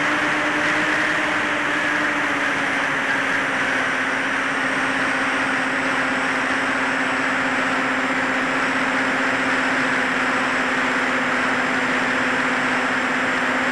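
Electric motors and propellers of a HEEWING T2 Cruza VTOL tilt-rotor plane in forward flight: a steady drone heard onboard, with airflow rushing over the microphone. The pitch dips slightly about two seconds in and then holds.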